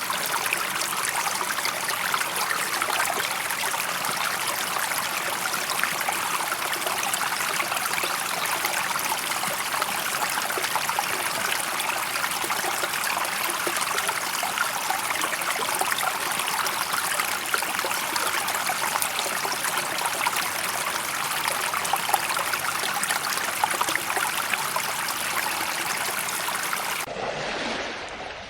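Steady rushing water, like a stream, that changes abruptly to a quieter, duller sound near the end.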